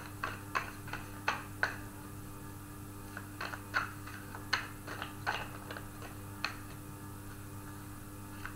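A deck of tarot cards being shuffled by hand: a string of short, sharp card clicks and slaps at irregular spacing, a few a second, with a pause in the middle.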